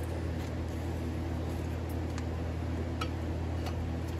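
Front brake caliper of a 2006 Toyota Camry being worked back over the new rotor by hand, giving a few faint metallic clicks, over a steady low machine hum.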